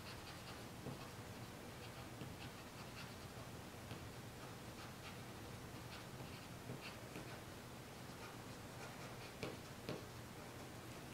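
Eraser scratching and rubbing on charcoal-covered paper in short, irregular strokes as highlights are lifted out of the drawing, with two slightly louder taps near the end.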